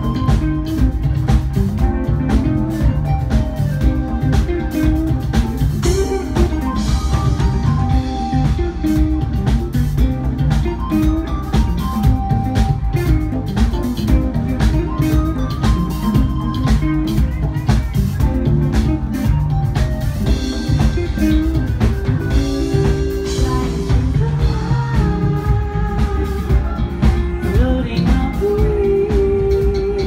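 Live jazz-funk band playing: drum kit, bass guitar, electric guitar and keyboards, loud and steady. Near the end a sung note is held with vibrato.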